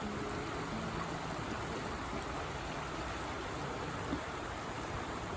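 Creek water flowing over rocks, a steady, even rush.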